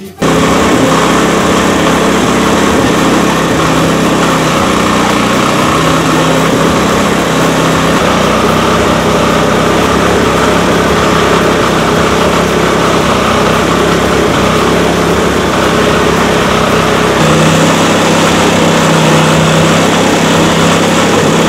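Small stationary engine driving a wooden cassava grater, running steadily at a loud level while cassava roots are fed into the grating drum; its pitch shifts a few times.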